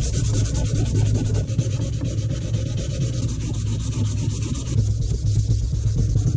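Sandpaper rubbed by hand along a zebra wood axe handle in quick back-and-forth strokes, a steady rasping scrub.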